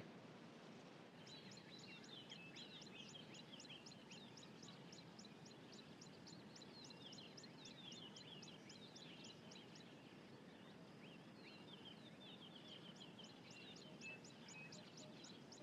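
Faint wild birdsong: a rapid train of short high chirps, about four a second, over softer twittering. It pauses for several seconds in the middle and starts again near the end, over a low, even background hiss.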